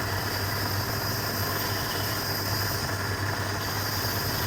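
Wood lathe running steadily with a constant hum.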